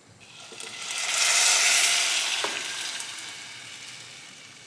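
Blended tomato sauce poured into a pot of hot oil-toasted fideo noodles, sizzling hard: the sizzle swells about a second in, then slowly dies down.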